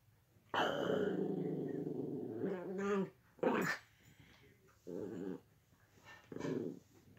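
Dog growling in play: one long growl of about two and a half seconds, a brief sharp higher-pitched sound, then two shorter growls.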